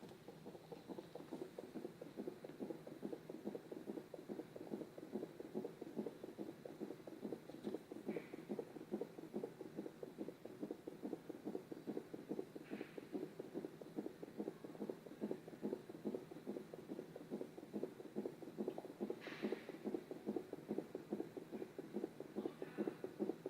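A baby's fast heartbeat, heard as a steady run of quick, even pulses through a fetal heart monitor's speaker.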